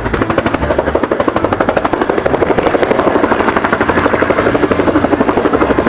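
Toy helicopter's electronic sound effect: a steady, fast rotor chop.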